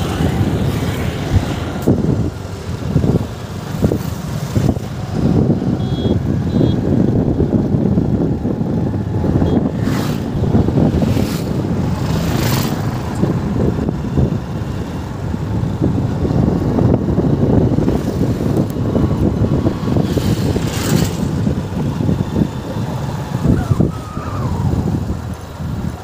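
Road noise ridden through on a moving motorbike: a dense, irregular rumble of engine and wind, with a few brief hissy swells as traffic goes by.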